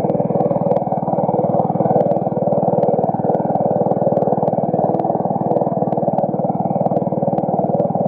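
Small outrigger fishing boat's engine running steadily at cruising speed, a continuous rapid putter.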